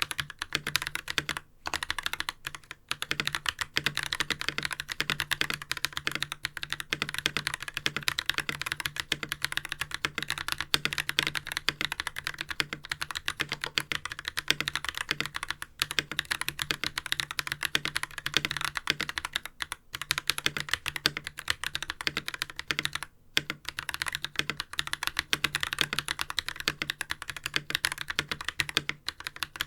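Fast, steady typing on a mechanical keyboard with Holy Panda tactile switches, lubed with Krytox 205g0 and unfilmed, under GMK Oblivion ABS keycaps. The keystrokes come in an unbroken run of crisp clacks, with a few brief pauses.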